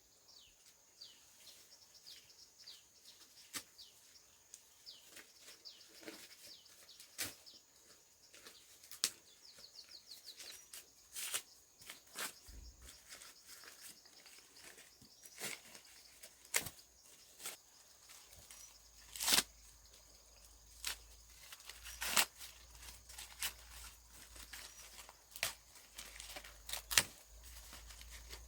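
Dry corn plants being harvested by hand: irregular sharp snaps and tearing as ears are broken off the stalks and husks are torn, with short chirping trills now and then.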